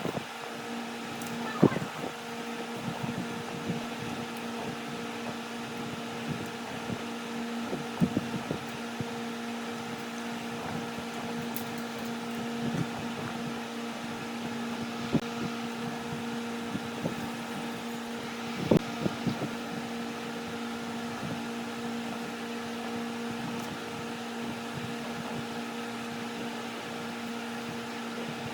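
Wood lathe running with a steady motor hum, broken by a few sharp clicks and knocks.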